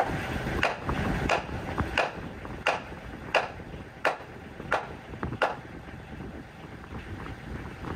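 Hammer driving nails into wooden wall framing: eight even strikes, about one and a half a second, that stop a little past halfway. A tractor engine idles low under the first few strikes.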